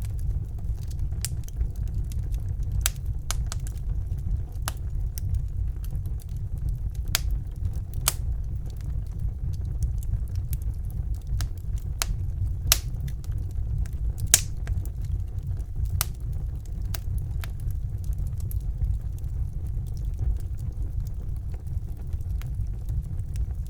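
Wood fire burning in a fireplace: a steady low rumble of flames with irregular sharp crackles and pops from the burning logs, a couple of louder pops about halfway through.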